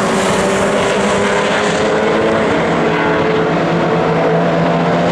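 Historic touring-car racing engines running hard at race speed, several engine tones heard at once and holding fairly steady in pitch.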